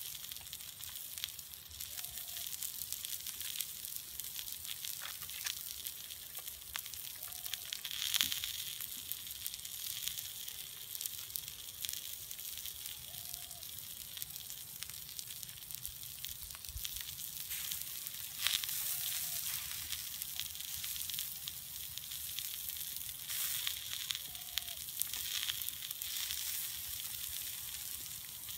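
Chopped vegetables sizzling on a hot metal sheet over wood embers: a steady high hiss with occasional crackles and pops.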